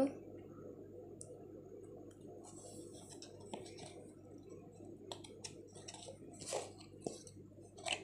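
Faint rustling and scraping of a piece of cardboard being handled, with a few light clicks, over a low steady hum.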